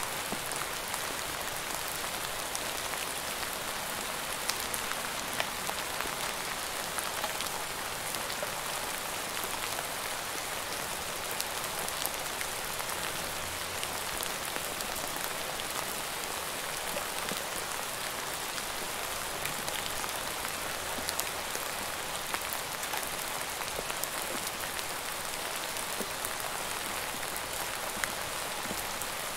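Steady rain falling: an even hiss laced with many sharp individual drop impacts, keeping the same level throughout.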